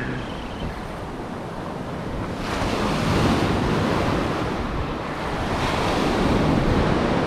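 Ocean surf breaking and washing up a sandy beach, swelling louder about two and a half seconds in and again near six seconds as waves come in.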